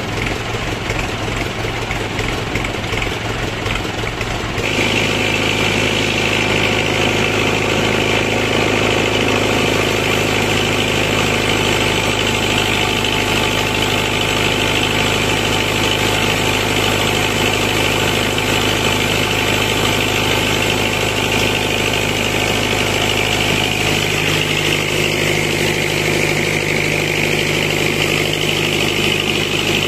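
Tractor engine running steadily, powering a tractor-driven mobile sawmill. The sound changes abruptly about five seconds in, and from then on a steady high whine from the running sawmill sits over the engine.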